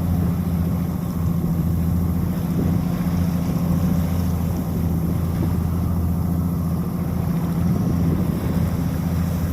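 Steady engine drone with an even low hum, unchanging throughout.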